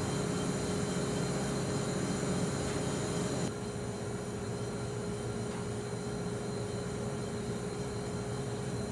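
Steady mechanical hum and hiss aboard the steamboat, with one constant mid-pitched tone running through it. It drops slightly in level about three and a half seconds in.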